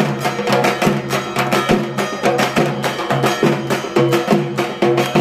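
Dhak, the large Bengali barrel drum, beaten with sticks in a fast, driving rhythm of rapid, evenly repeating strokes: the drum rhythm played for a dhunuchi dance.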